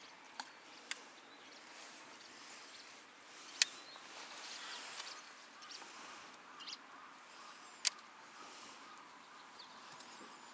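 Quiet outdoor ambience with faint bird chirps, broken by four sharp clicks or knocks: two light ones near the start, a loud one about three and a half seconds in, and another near eight seconds.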